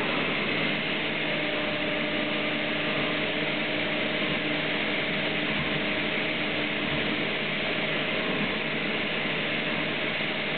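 Multicam CNC router with a Braille-Oz attachment running as it places braille dots in a sign: a steady mechanical running noise with a few faint steady tones under it.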